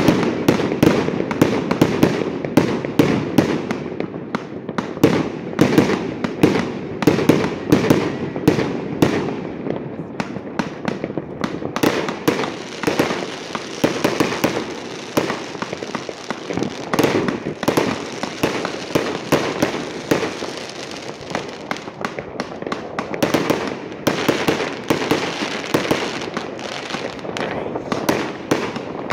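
Fireworks going off in a dense, continuous barrage: several bangs a second without a let-up, with crackling between them.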